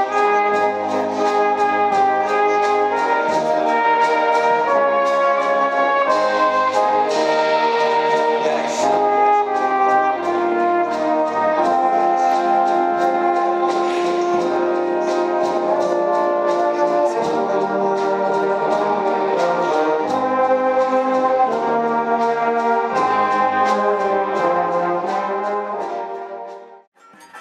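Brass band of cornets, horns, euphoniums and tubas playing a tune with held chords. The music cuts off about a second before the end.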